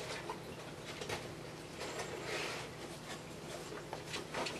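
Scattered light clicks and a brief rustle of lures and packaging being handled and put back in a tackle subscription box, over a faint steady hum.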